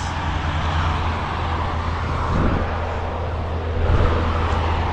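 Highway traffic passing below: a steady hiss of tyres with a low engine rumble, swelling slightly about four seconds in as a vehicle goes by.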